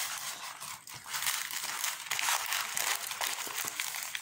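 Diamond painting canvas and its clear protective film rustling and crinkling as they are handled, smoothed flat and rolled over by hand.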